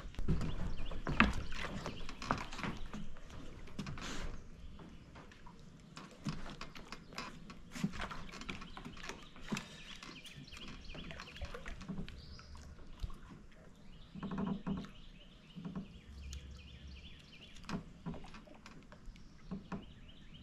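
Scattered clicks and knocks from handling a small catfish on a line over a wooden dock, with no steady sound behind them.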